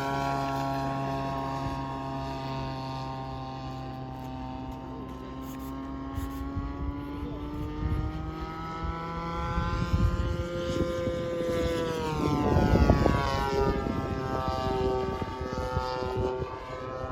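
Radio-controlled model airplane in flight, its engine and propeller giving a steady buzzing drone. The pitch climbs as the plane approaches, and the sound grows loudest about 12 to 13 seconds in as it passes, with a falling pitch.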